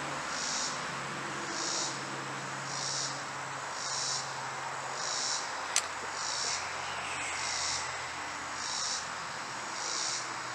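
An insect calling in short pulsed buzzes, about one a second, over a steady sizzling hiss from beeswax boiling in an overheated pan. A single sharp click about halfway through.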